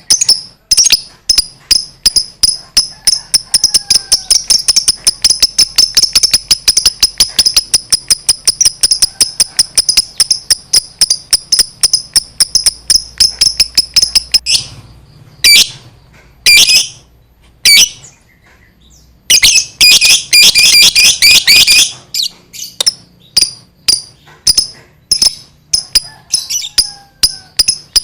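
Lovebird singing its long 'ngekek' chatter: a rapid, unbroken string of shrill notes for about fourteen seconds, then a few short bursts and a dense, loud flurry around twenty seconds in, trailing off into scattered chirps.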